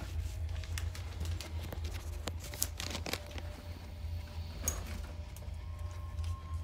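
Rustling and sharp knocks of a bag being handled and lifted up onto a metal-framed bunk bed, clustered in the first half and again a little before the end, over a steady low hum.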